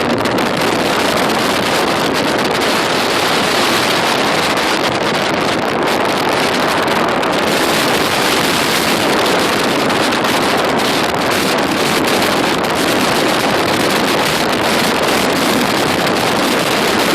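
Hurricane wind roaring steadily and buffeting the microphone, mixed with the rush of surf.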